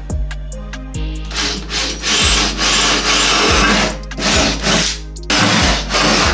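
Cordless drill boring into a steel frame plate. It starts about a second in, stops for about a second near the end, then drills on, over background music.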